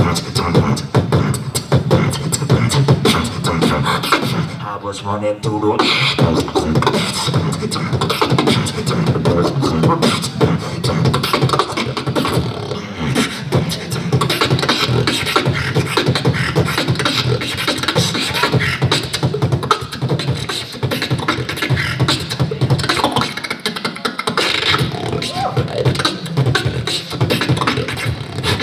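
Beatboxing into a handheld microphone: a fast, dense run of vocal kick, snare and hi-hat sounds over a strong bass line. About five seconds in the hits give way briefly to a pitched, wavering vocal tone before the beat resumes.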